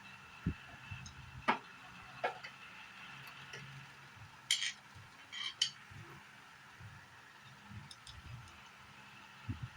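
Scattered light clicks and metallic clinks, with a few sharper clinks in the middle, over a faint steady hum: metal parts and tools being handled during air-conditioner repair work.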